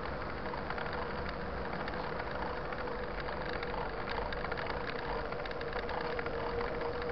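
Steady riding noise from a mountain bike: rolling tyres and wind on the microphone, with a steady hum and light clicking throughout.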